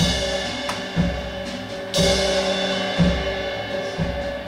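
Live percussion: a low drum struck about once a second, with a cymbal wash at the start and again about two seconds in, over steady ringing tones.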